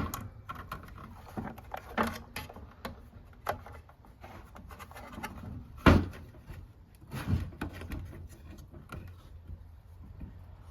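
Clear plastic tubing and fittings being handled and routed by hand: scattered clicks, rustles and a few light knocks, the loudest about six seconds in.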